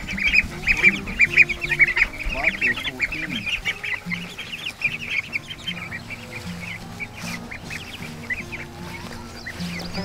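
A flock of Cornish Cross broiler chicks, about three weeks old, peeping: a rapid stream of short, high peeps that thins out after about four seconds.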